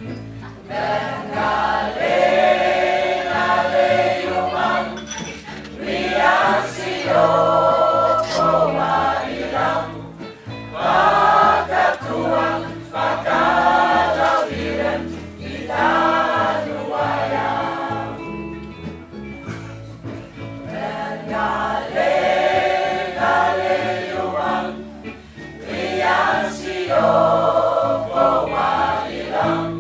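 A choir singing in sung phrases over an accompaniment with a steady bass line.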